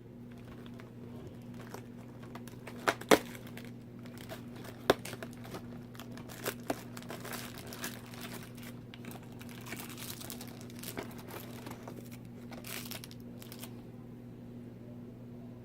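A tea bag's wrapper crinkling and tearing as it is opened, with a few sharp clicks, over a steady low hum.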